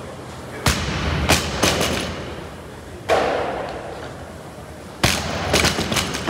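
Barbell loaded with rubber bumper plates dropped from overhead onto a rubber gym floor, twice, about four seconds apart. Each drop lands with a heavy thud, then bounces in several quicker, weaker knocks.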